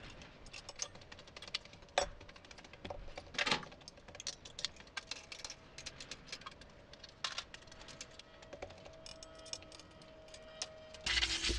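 Hand tools and small metal parts clinking and clattering against a steel welding table as they are picked up and set down. A loud rushing noise starts near the end.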